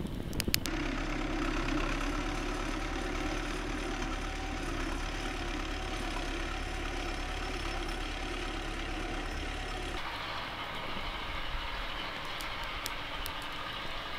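A campfire crackles briefly, then a farm tractor's diesel engine runs steadily as it pulls a plough. About ten seconds in, the engine sound cuts off to a quieter, even outdoor background with a few light clicks.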